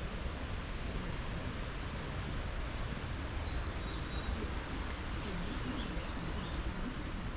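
Steady outdoor background noise, heaviest at the low end, with a few faint high bird chirps and whistles about halfway through.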